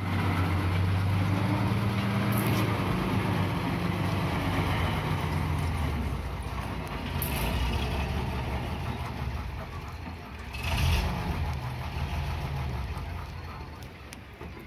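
Heavy diesel engine of a Caterpillar E120B excavator running steadily. Three short rushing bursts sound over it, about two and a half, seven and eleven seconds in, the last the loudest.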